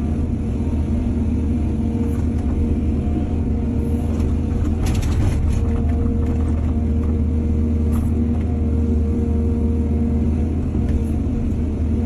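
Excavator's diesel engine running steadily at a constant pitch, with a short burst of clattering about five seconds in and a lighter one near eight seconds.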